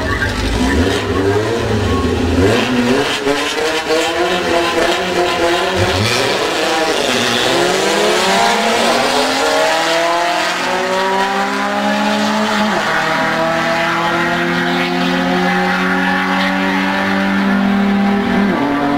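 Drag-racing cars, a VW Beetle among them, launching and accelerating hard down the strip. The engine pitch climbs in several rising sweeps broken by gear changes, then holds steadier notes as the cars run away.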